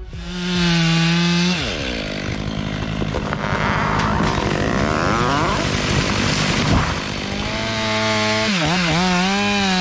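Two-stroke chainsaw running at high revs. Its pitch drops about a second and a half in, then holds fairly steady. Near the end the engine speed swings rapidly up and down.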